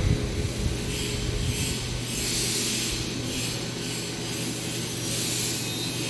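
3D printer filament extrusion line running: a steady low machine hum with a high hiss that swells and fades several times.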